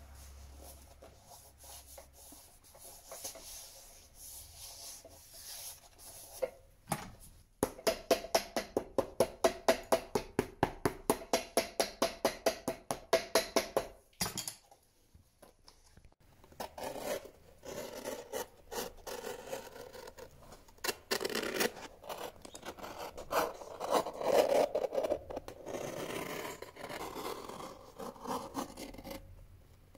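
Cobbler's hammer tapping a new leather sole down onto a shoe on an iron last: a quick, even run of about five taps a second for some six seconds, the loudest part. Before it, soft handling of the leather; after it, irregular rubbing and scraping as excess leather is worked and trimmed at the shoe's edge.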